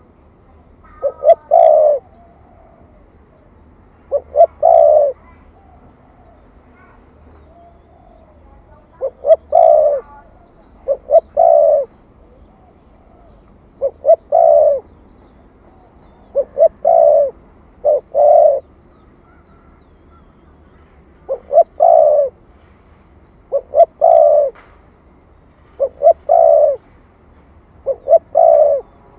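Spotted dove cooing in the 'thổ thúc gù' style: about eleven short, loud phrases, each two brief notes followed by a longer coo, coming every two to three seconds, with a longer pause around the middle.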